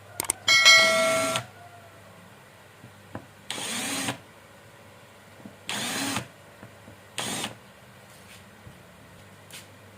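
A small electric power tool run in four short bursts, each under a second, the first and loudest with a high whine.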